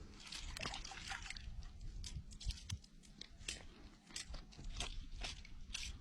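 Irregular small splashes and crackles of water being sloshed about, as a caught wels catfish is handled in the shallows.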